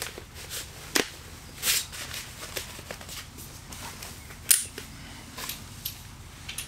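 Sharp clicks and clacks of a folding camp cot's jointed leg frames being fitted onto its canvas bed: a scattered handful of short knocks, the loudest about four and a half seconds in.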